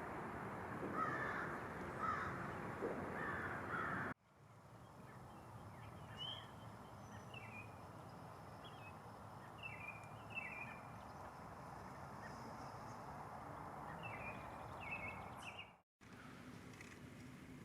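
Crows cawing three times, then, after a cut, small birds giving short, repeated descending chirps over steady outdoor background noise.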